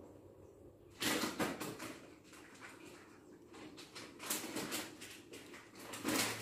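Three bursts of crackly, clattering rustle, as of things being handled on a kitchen counter: the first about a second in, the second past the middle, the third near the end.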